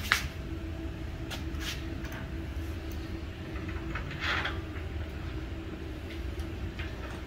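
Metal bolts clicking and scraping against steel brackets as they are pushed through the mounting holes by hand. There is a sharp click right at the start, a few lighter ones in the next two seconds and another a little after four seconds, all over a steady low hum.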